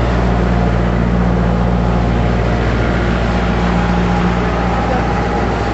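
Jeep engine running at low, steady revs, a constant engine note with no revving.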